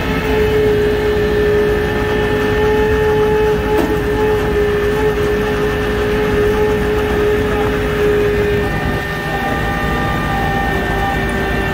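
Flatbed tow truck's engine running close by: a low rumble under a steady high whine. The whine drops out briefly about nine seconds in and then comes back.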